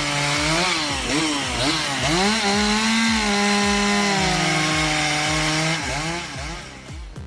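Petrol chainsaw revving up and down, then held at high revs for about three seconds, likely cutting into wood, before dropping back near the end.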